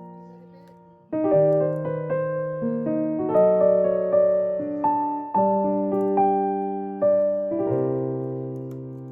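Background piano music: gentle chords struck about once a second, each note ringing and slowly fading.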